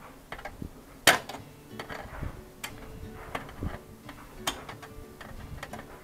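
Small irregular metallic clicks and taps as a screw is backed out and a washer's water level pressure switch is worked loose from the metal control console. One sharper click comes about a second in.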